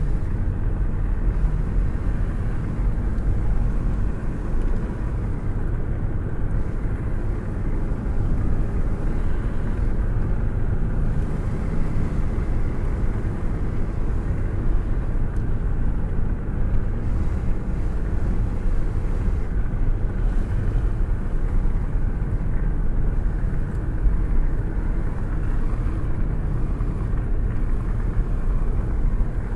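Car cruising with a window open: a steady low rumble of road and wind noise, with the airstream rushing past a hand held out of the window.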